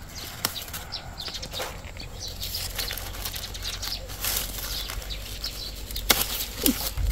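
Pear-tree leaves and paper fruit bags rustling and crinkling as a gloved hand works through the branches to pick a bagged pear, with a few sharp clicks.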